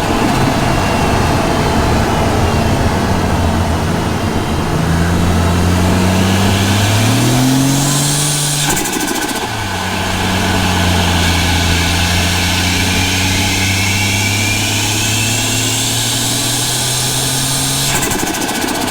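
Ford Barra 4.0-litre turbocharged straight-six of a Falcon G6E Turbo, heard from the engine bay, pulling under boost. The engine note rises to a whistling turbo spool, then breaks into turbo flutter on lift-off about nine seconds in. A second spool whistle climbs and ends in another flutter near the end.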